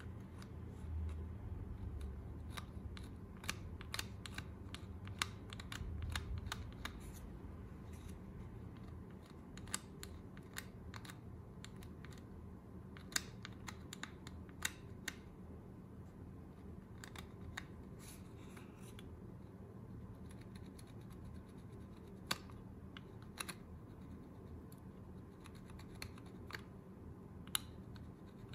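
A threaded metal screw scraping and twisting against an LED bulb's circuit board, giving scattered small clicks and scratches that are denser in the first half, with the plastic bulb housing handled in the hands.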